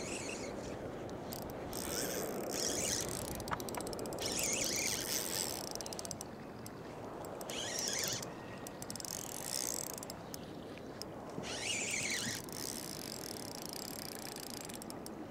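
Fishing reel being cranked in four short spells, its gears and pawl clicking, as line is wound in on a hooked white bass.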